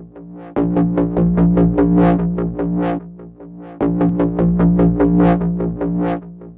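Electronic intro music: a synthesizer plays quick repeated notes, about five a second, over a steady bass, dropping out briefly near the start and again a little past the middle.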